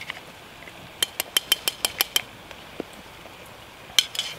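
Light metallic clinks against the billy can on a wood gas stove: a quick run of about eight taps about a second in, then one louder metal knock near the end.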